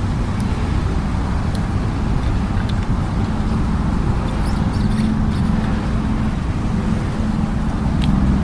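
Steady rumble of road traffic, with a few faint, sharp clicks spread through it.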